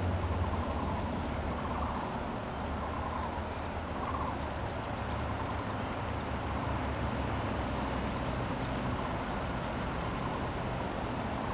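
Steady outdoor background noise with a low rumble and a faint, steady high whine, and a few faint animal calls in the first few seconds.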